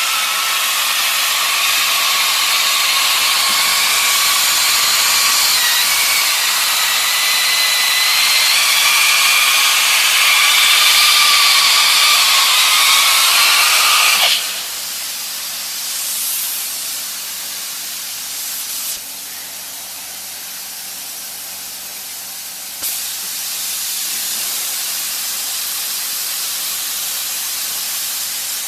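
Steady hiss of hot air blowing from the nozzle of a HIGHTEX S701 hot-air seam welding machine, with a faint wavering whistle in it. About halfway through the hiss drops abruptly to a quieter, steady level.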